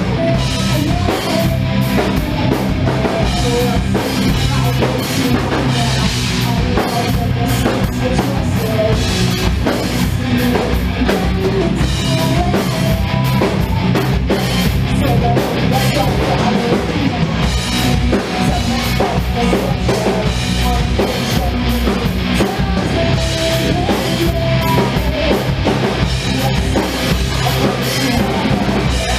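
Rock band playing loud, heavy music live: electric guitar, bass guitar and drum kit, the drums pounding steadily throughout.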